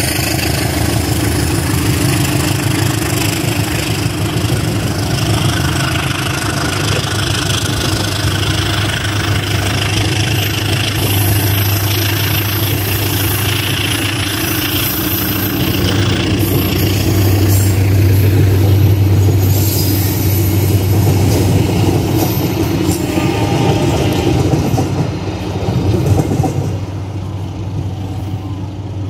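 A train passing close by on the track at a railway level crossing: a loud, continuous rumble of wheels on rails that dies down near the end.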